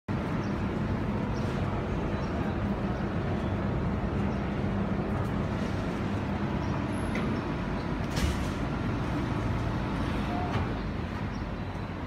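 Fresh-air intake fans in a condenser enclosure coasting down: a steady low whir and rumble, with a hum that fades out about five seconds in. One sharp click about eight seconds in.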